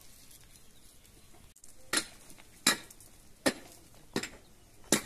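Sharp knocks struck at a steady pace, about one every three-quarters of a second, starting about two seconds in, each with a brief ring.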